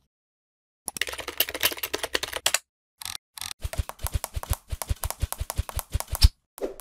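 Computer keyboard typing: a fast, dense burst of keystrokes about a second in, then after a short pause a longer run of separate, evenly spaced key clicks, about five a second, each with a low thud under it.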